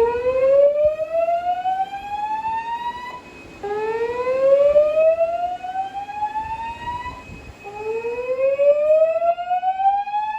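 Fire alarm speaker strobes sounding a whoop evacuation tone from a Notifier NFS2-640 DVC voice system: a tone that rises slowly over about three and a half seconds, then repeats, three times. A faint steady high tone runs underneath.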